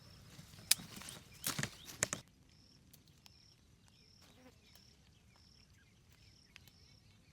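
A few sharp knocks in the first two seconds, then quiet outdoor ambience with a short, high chirp repeating about every two-thirds of a second.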